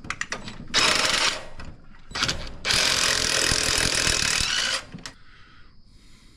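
Ratchet working on the spark plugs of the truck engine's other cylinder bank: a few clicks, then two spells of rapid ratcheting, one about half a second long and one about two seconds long.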